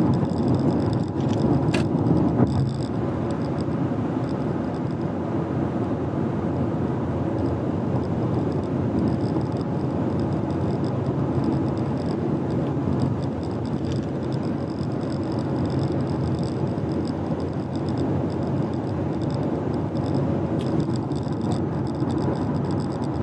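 Car driving on a road: a steady rush of tyre and road noise with the engine under it, and a brief click about two seconds in.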